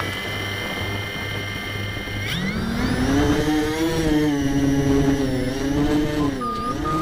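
Mini tricopter's brushless motors and 6045 propellers whining as they spin up on the ground. About two seconds in the pitch climbs as the throttle is raised for takeoff, then it rises and falls with the throttle in flight.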